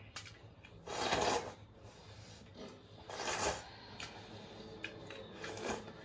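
A person slurping broth from a bowl: three long, noisy slurps, about a second in, around three seconds in and near the end. The first is the loudest.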